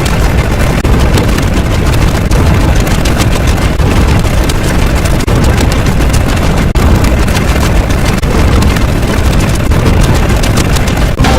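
Loud, continuous rumbling noise, dense and heaviest in the bass, with no clear tone or beat and a brief dip near the end.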